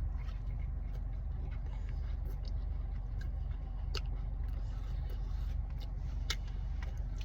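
Steady low rumble of a car idling, heard from inside the cabin, with a few faint short clicks scattered through it.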